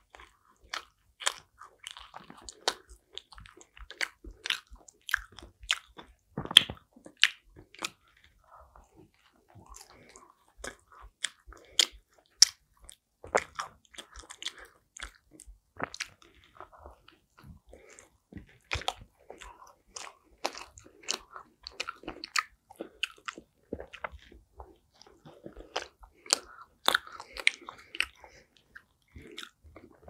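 Close-miked biting and chewing of a slice of thick-crust pizza topped with cheese and pickles: many sharp, irregular clicks of teeth through crust, with softer wet chewing between them.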